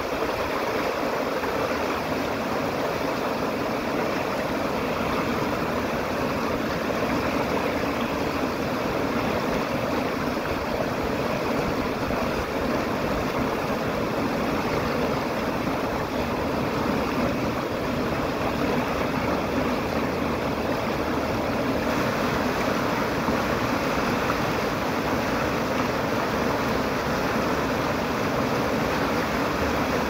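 Fast, shallow creek rushing and splashing over rocks and boulders in a steady, unbroken rush of water.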